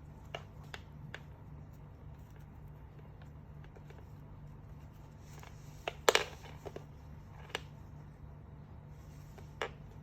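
Scattered light clicks and taps of hands handling a blind box and its packaging, with a louder clatter about six seconds in, over a steady low hum.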